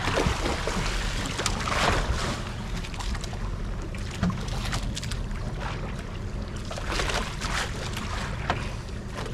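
Small fishing boat at sea: a low, steady motor hum under wind buffeting the microphone and water splashing, with a few brief louder gusts or splashes.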